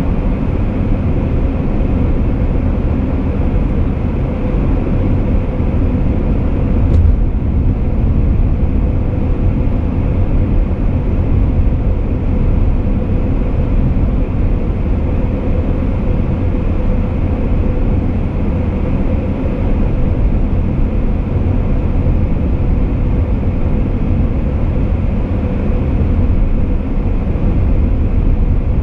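Car cruising steadily on an expressway: an even, unbroken rumble of road and tyre noise with a faint steady hum.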